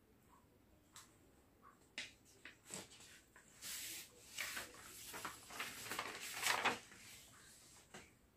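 Faint scratchy rubbing and scraping sounds, preceded by a few light clicks.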